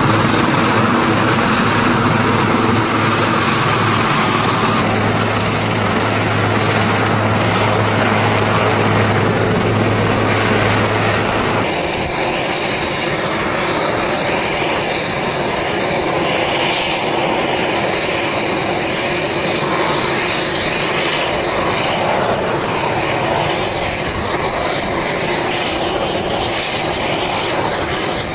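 Sikorsky S-61 helicopter's turbine engines and rotor running steadily. About twelve seconds in, the steady low hum cuts off abruptly and an even rushing noise of the helicopter in flight goes on.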